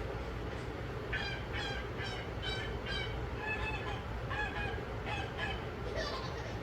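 A bird calling over and over in short honking notes, about two a second, over a steady low hum.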